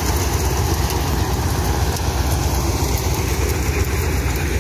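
Engine-driven mustard threshing machine running steadily while threshing mustard plants: a continuous low engine rumble with the whirr of the threshing drum, as straw is blown out one side and seed falls out below.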